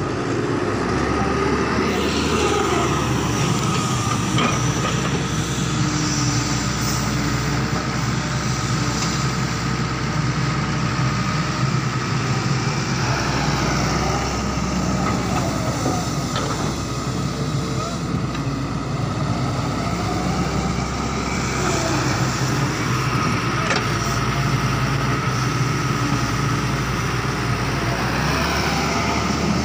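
Doosan hydraulic excavator's diesel engine running steadily under load, with its pitch rising and falling several times as the boom and bucket dig and dump soil.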